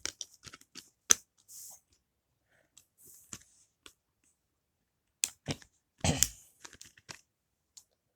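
Plastic Blu-ray case and its paper inserts being handled: scattered sharp clicks and short rustles of paper, with a denser burst of knocks and crinkling after about five seconds.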